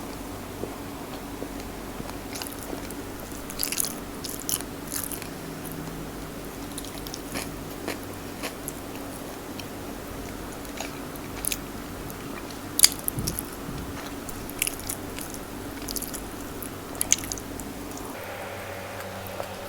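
Close-miked eating: chewing and biting with irregular crisp crunches and mouth clicks, the loudest crunch about 13 seconds in.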